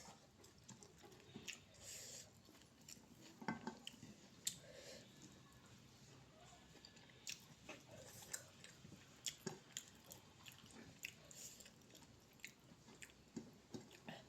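Close-up mouth sounds of someone eating curry and rice: repeated wet smacks and clicks of chewing, with occasional crunchy bites.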